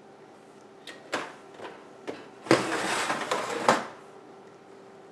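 Kitchen oven door being opened: a few light clicks, then about a second of metal scraping and rattling that starts and ends with a knock.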